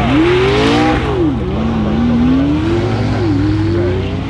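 McLaren P1's twin-turbo V8 accelerating hard away from a standing start, its note climbing through the gears with upshift drops about a second and a half in and again just after three seconds. A steady low engine drone runs underneath.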